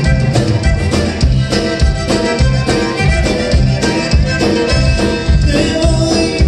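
Live conjunto band playing: button accordion over acoustic guitar, bass and drum kit, with a steady rhythmic beat.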